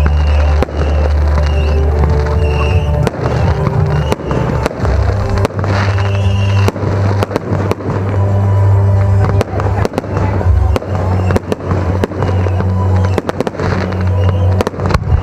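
Aerial fireworks display: many sharp bangs and crackles of shells bursting in quick succession, over music with a deep, steady bass.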